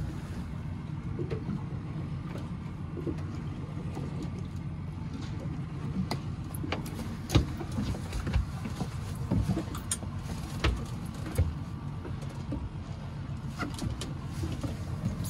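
A boat's engine idling with a steady low rumble, with scattered sharp clicks and knocks on the fibreglass deck.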